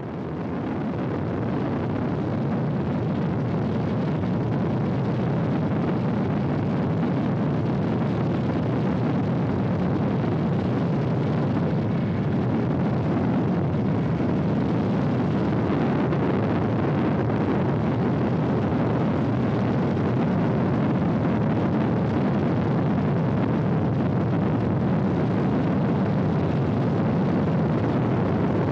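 Steady roar of a chase helicopter's engines and rotor heard from aboard the aircraft, fading in over the first second and then holding even.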